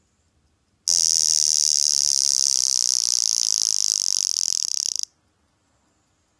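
Vintage Girard-Perregaux mechanical alarm wristwatch ringing: the alarm hammer strikes too fast for single blows to be heard, giving a loud, high metallic buzz. It starts about a second in, runs about four seconds, stutters briefly and then cuts off suddenly.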